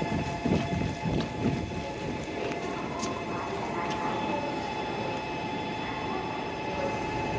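N700S Shinkansen trains at the platform: a steady electrical hum made of several held tones, over low rumbling that surges a few times in the first second and a half and then settles.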